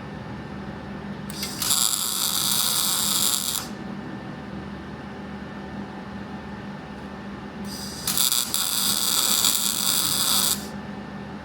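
Two bursts of MIG welding, each a couple of seconds of sizzling arc that starts and stops abruptly with the trigger, over a steady low electrical hum.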